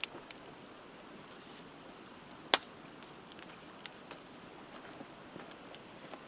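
Wood fire crackling with scattered sharp pops, one much louder pop about two and a half seconds in, over the steady rush of a river.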